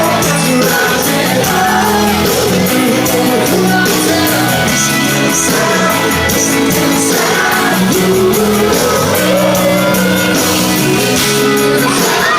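Live rock band playing loudly in a large hall, with drums and sustained chords, singing and shouts from the stage or crowd.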